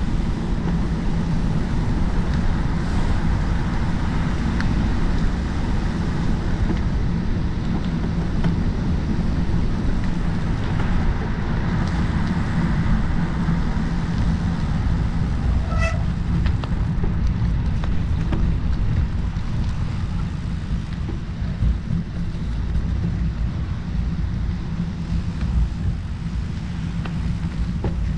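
Wind rumbling on the microphone of a camera mounted on a moving bicycle, a steady low noise with road and tyre noise underneath. About halfway through there is one short electronic-sounding beep.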